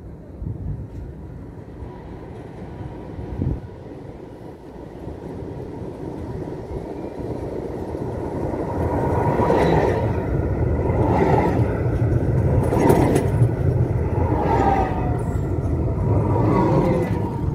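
A tram approaches and passes close by. The rumble of steel wheels on rail grows louder over the first several seconds, then comes a series of clanks spaced a second and a half to two seconds apart, and near the end a whine that falls in pitch.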